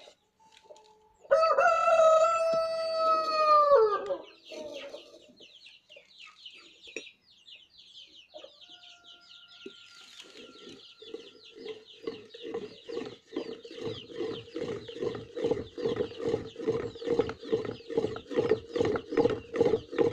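A rooster crows once, loud and drawn out, about a second in. From about ten seconds in, a homemade wooden pump drill works in a steady rhythm of about two strokes a second, its bit grinding into hard steel, getting louder toward the end.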